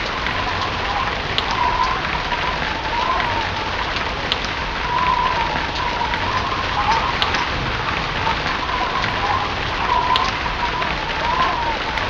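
Steady rain falling, with individual drops ticking now and then. A wavering tone recurs about once a second over the rain.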